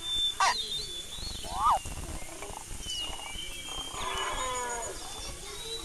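Animal calls: a short sharp call near two seconds in and a longer call falling in pitch about four seconds in, over high chirping in the background.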